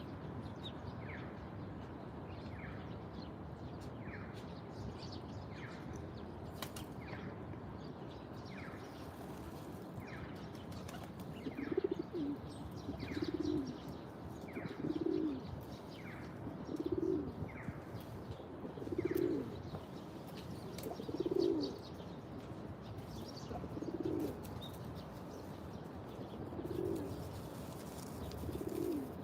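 A dove cooing in a low repeated phrase about every two seconds from about twelve seconds in, the loudest sound. Through the first two-thirds a small bird repeats a short, high, falling chirp about every second and a half. A steady low hum of distant city traffic lies underneath.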